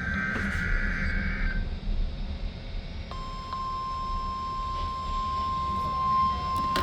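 NOAA Weather Radio test alert heard through a weather radio receiver, over a steady low hum and hiss. The first second and a half is the end of a buzzy, warbling SAME digital header burst. About three seconds in, the steady 1050 Hz warning alarm tone starts and holds.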